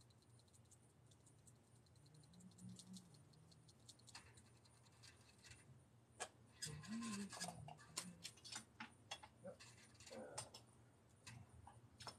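Near silence with faint scattered clicks and scratches from hands handling things at a spray-paint board, most of them bunched about halfway through.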